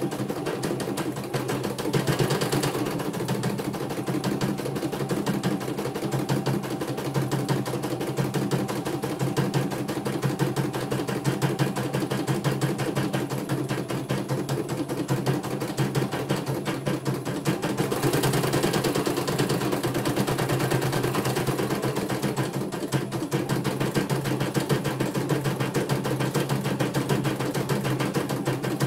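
CNY E900 computerized embroidery machine stitching a design: a fast, steady clatter of needle strokes over the constant hum of its motor.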